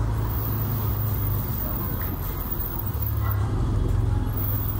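Ferrari 488 GTB's twin-turbo V8 running at low speed as the car rolls slowly by close up, a steady low rumble.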